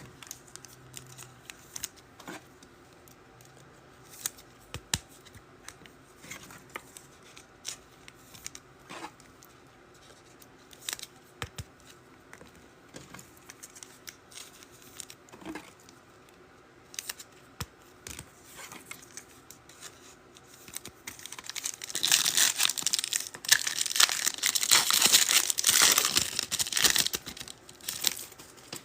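Scattered light clicks and taps of trading cards being handled. Near the end come several seconds of loud crinkling and tearing as a trading-card pack wrapper is ripped open.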